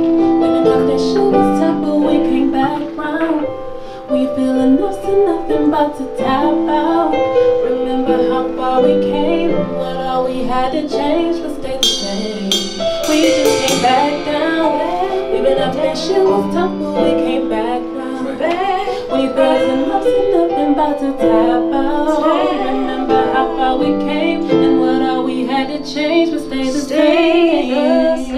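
Keyboard playing held chords with a woman singing over it.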